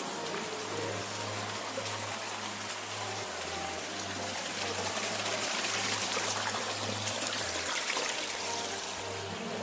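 Running water, a steady rushing hiss that swells a little in the middle.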